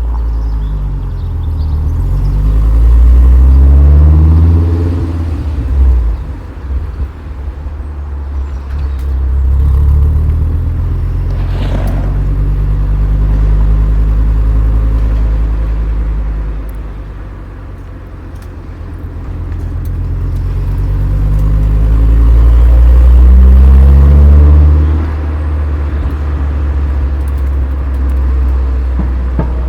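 Volkswagen Golf Mk4 VR5's five-cylinder engine through its Sportex exhaust, with the middle silencer still fitted, heard close to the tailpipe. The engine note climbs and falls as it pulls, swelling twice, with a steadier drone between.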